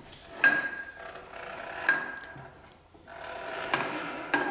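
Wooden hand-cranked winch of a model crane being turned to raise its load: a few sharp wooden clicks, each with a short ring, and rubbing near the end.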